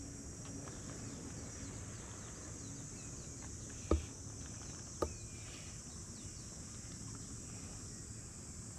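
Steady high-pitched insect chorus, with two sharp clicks about a second apart midway through.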